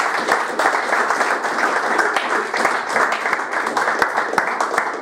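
An audience applauding: many hands clapping together in a dense, even patter.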